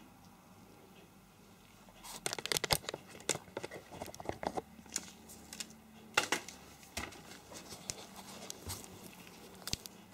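Handling noise as the camera is picked up and repositioned: irregular rustles and sharp clicks starting about two seconds in, with another loud cluster a few seconds later.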